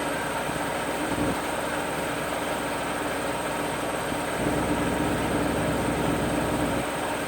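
Siemens Extraklasse F1300A washing machine running, a steady machine noise with the motor humming more strongly for a couple of seconds from about four and a half seconds in.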